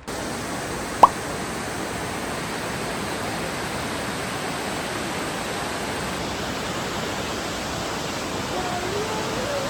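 Steady roar of a large waterfall: an even rushing noise that starts abruptly. A single brief, sharp pop comes about a second in.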